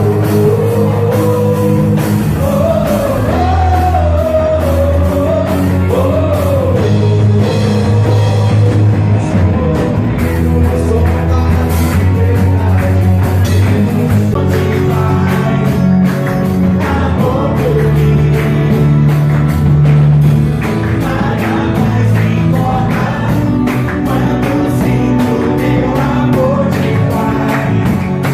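Christian worship song: a voice singing a melody over steady band accompaniment with a regular beat.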